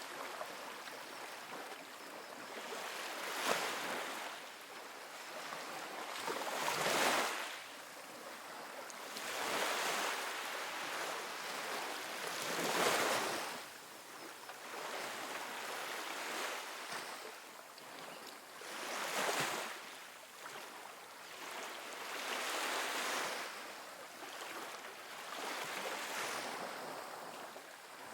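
Small ocean waves breaking and washing up a sandy beach, a steady hiss of surf that swells into a louder wash every few seconds.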